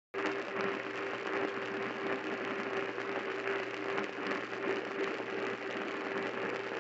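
AM radio static and hiss from a weak, distant station on the 850 kHz AM band, with a steady low whistle running through the noise. It starts abruptly just after the opening.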